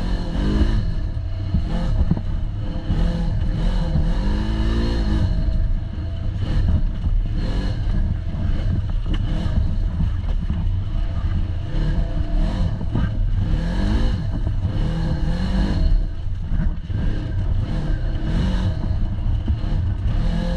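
Polaris RZR side-by-side's engine, heard from the driver's seat, revving up and falling back again and again as it is driven along a rough dirt trail, over a constant loud rumble.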